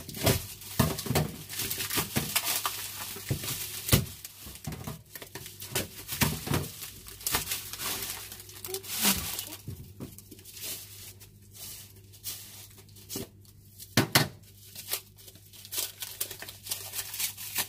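Plastic bags and cling wrap crinkling and tearing as a wrapped food container is cut open with scissors and unwrapped by hand, in irregular bursts of rustling, with a couple of sharp knocks about four seconds in and near fourteen seconds in.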